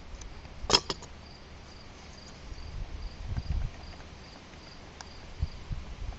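Clutch side case cover of a Kawasaki KDX200 engine being worked loose off its guide pins: a sharp knock about a second in, then low, dull bumps and handling noises. A faint, evenly repeating high chirp runs underneath throughout.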